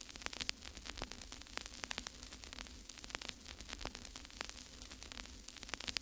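Faint crackling static: irregular sharp clicks, several a second, over a steady hiss and a low mains hum.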